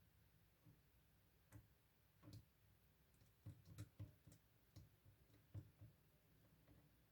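Faint, irregular light clicks and taps, clustered in the middle, from small parts being handled while industrial vaseline is dabbed into a graphics card fan's bearing.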